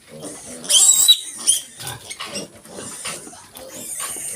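Piglets squealing sharply, a loud high squeal about a second in and a shorter one just after, over a run of short low pig grunts.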